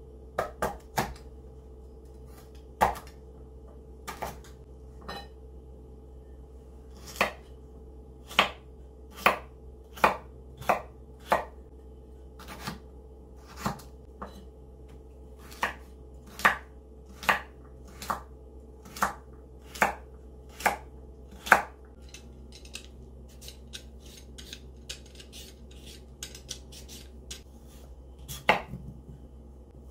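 Knife chopping food on a cutting board in single firm strokes a little under a second apart, then lighter, quicker taps, with one last firm stroke near the end.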